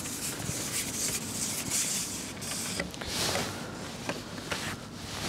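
Rustling and rubbing handling noise with a few light clicks as a fish is played and brought in on a fishing pole.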